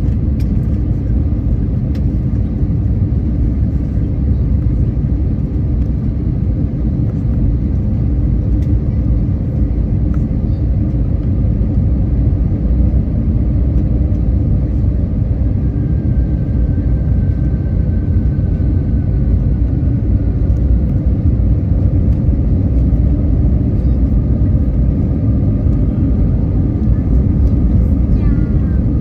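Steady low rumble of a jet airliner's engines and rushing air, heard from inside the passenger cabin during the final approach to landing.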